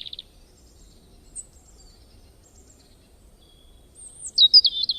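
Songbirds chirping as an added sound effect: a burst of high chirps at the start, faint calls through the middle, then a quick run of loud, high chirps near the end.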